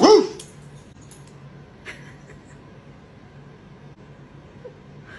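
A man gives one short, loud imitation dog bark right at the start. Afterwards there is a quiet room with a faint low hum and a few small rustles.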